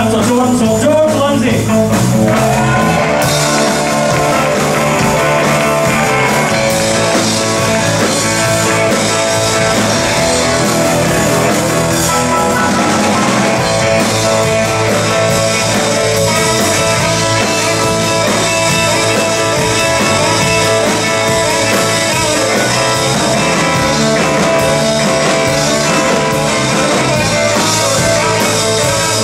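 Live blues band playing at a steady, loud level: electric guitar over drums and keyboard.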